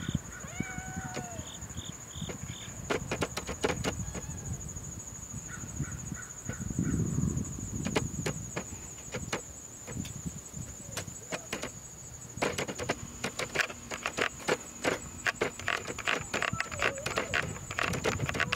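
Camera control dial clicking as it is turned to work the digital zoom: scattered clicks at first, then quick runs of clicks over the last third. A steady high, thin whine runs underneath.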